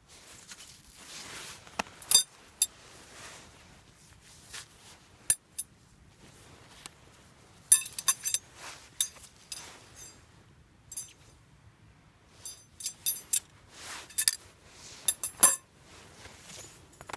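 Metal camping gear clinking and rattling as it is handled and packed away, in irregular bursts of sharp ringing clinks with soft rustling in between.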